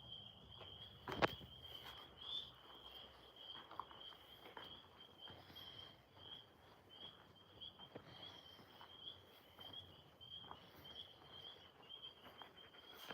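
Chorus of tree frogs: a faint, steady high trilling. A single sharp knock sounds about a second in.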